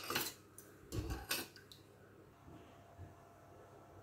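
Metal spoon knocking and clinking against a stainless-steel saucepan of milk while stirring: a few light, sharp strikes in the first second and a half, one with a dull low knock about a second in, and a faint tap near three seconds.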